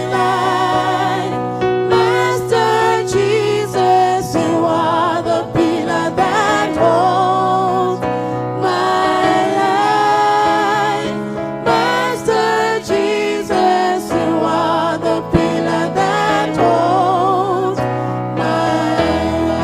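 Gospel song: several voices singing with vibrato over sustained bass notes.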